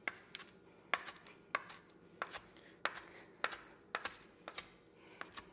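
Chef's knife chopping sun-dried tomatoes on a wooden cutting board: a steady run of sharp knocks as the blade hits the board, about two a second.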